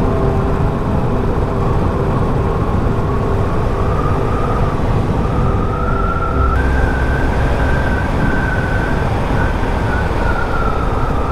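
Motorcycle riding at steady road speed: the engine runs under a constant rush of wind noise. A steady whistle-like tone wavers above it and steps up in pitch about six and a half seconds in, as the engine rumble briefly grows louder.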